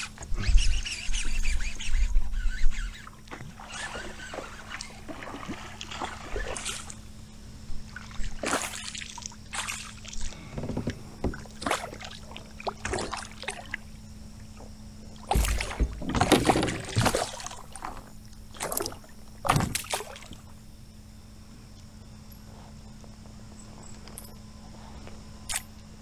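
A hooked northern pike thrashing and splashing at the side of a kayak as it is fought and landed, in irregular bursts with gear knocking against the hull. A faint steady hum runs underneath.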